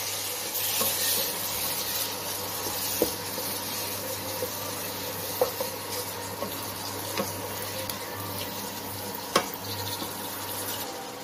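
Onion-tomato masala with a little water sizzling in a pan while a spatula stirs it, with a few sharp knocks of the spatula against the pan.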